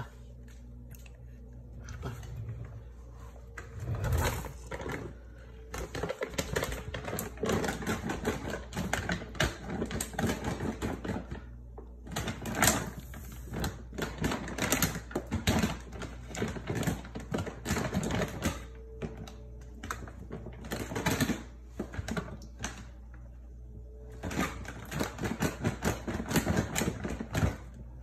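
Plastic baby walker clattering and rattling in bursts of rapid clicks as a baby moves it about on a wooden floor and handles its tray toys.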